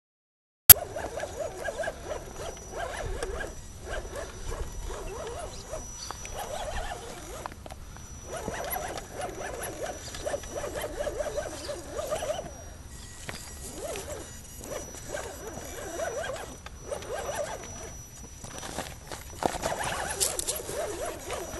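Axial SCX10 RC rock crawler's electric motor and geared drivetrain whining in uneven bursts as it is driven up the rocks, stopping briefly between throttle pulls. A sharp click comes under a second in, after a moment of silence.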